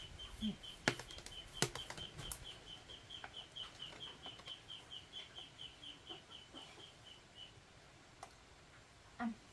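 A small animal's high chirp, repeated steadily at one pitch about three times a second, stops about seven seconds in. A few sharp clicks sound in the first two or three seconds.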